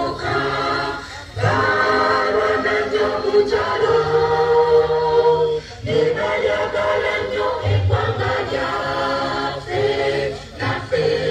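A group of people singing together unaccompanied, in slow phrases of long held notes with a short break between phrases every four to five seconds.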